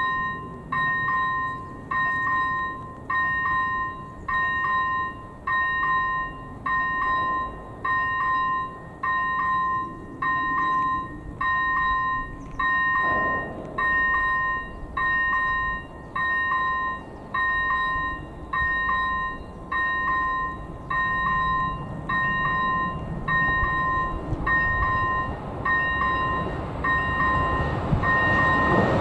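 AŽD E-bell ZV01 electronic level-crossing bell ringing about once a second, each stroke a bright two-pitched ding, warning of an approaching train. Over the last several seconds the rumble of the approaching train grows louder.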